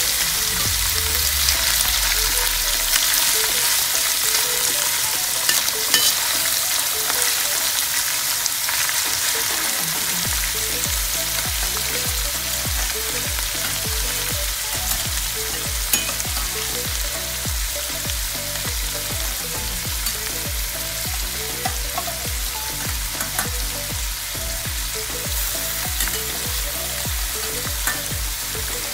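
Sliced sea-fish intestines frying in hot oil in a wok, a steady sizzle as they cook through.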